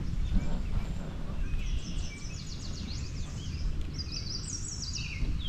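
A songbird singing in quick runs of high notes that step downward in pitch, the last runs near the end falling lowest, over a steady low rumble.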